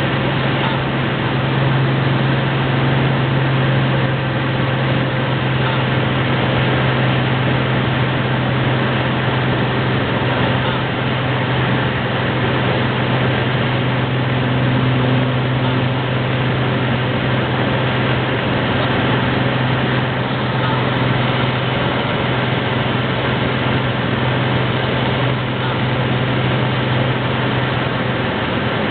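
Cessna Turbo 206's piston engine and propeller droning steadily in the climb after takeoff, heard from inside the cabin as a constant low hum under a loud rush.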